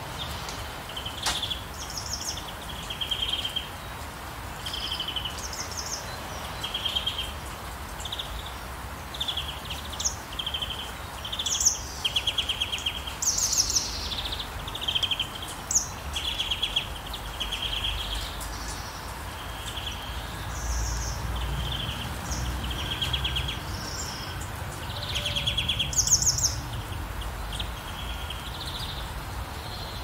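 Steady rain hiss with songbirds chirping over it: short trilled calls come about once a second, some higher and louder than others. A low rumble swells for a few seconds past the middle.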